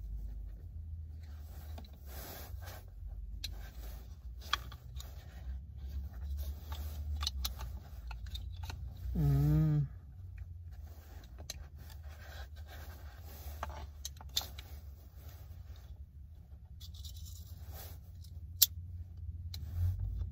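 Scattered small clicks, rattles and rustles of objects being handled, over a steady low rumble inside a vehicle cabin. About nine seconds in, a man gives a short hum.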